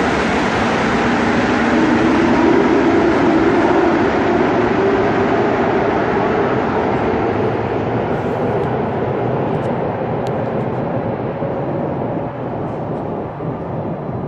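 MR-63 rubber-tyred metro train running, a loud steady rumble of tyres and motors with a low hum. It slowly fades in the second half.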